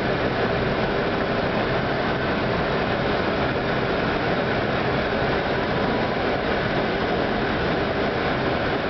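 Steady flight-deck noise of an Airbus A319 on final approach: an even rush of air with a low engine hum underneath.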